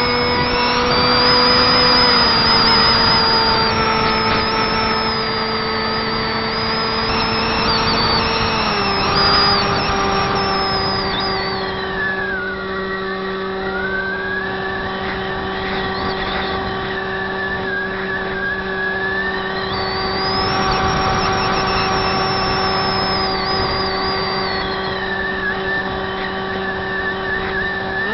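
Electric motor and propeller of a Zeta Wing Wing Z-84 flying wing in flight, heard from on board: a Turnigy 2200kv brushless motor turning a 6x4 prop. It makes a steady buzzing whine whose pitch steps down twice, about two seconds in and again around nine seconds, as the throttle is eased. Under it runs a rush of airflow noise, and a fainter high whine dips and climbs again midway.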